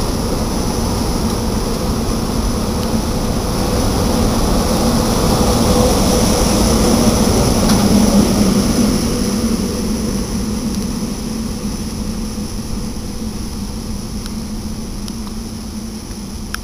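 SEPTA Silverliner electric commuter train pulling out along the platform, a steady rumble and hum that grows louder to a peak about halfway through, then fades as the train moves away.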